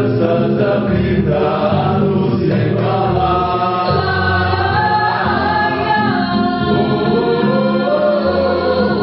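Live stage music: a woman singing long, held melodic lines, backed by a choir of voices.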